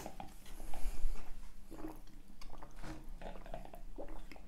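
Drinking from fast-food cups: sips through a plastic straw, with small mouth and chewing sounds and a few soft knocks.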